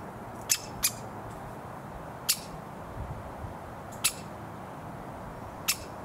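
Woodpecker giving five short, sharp calls at uneven intervals over a steady low background noise.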